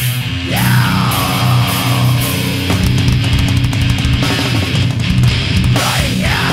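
Loud, distorted heavy-metal band music with electric guitar, bass and drums. About half a second in, a high sliding pitch falls away over a couple of seconds, and more sliding pitches come in near the end.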